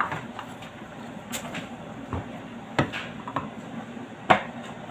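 Three sharp knocks or clicks about a second and a half apart, the last one the loudest, from hard objects being handled.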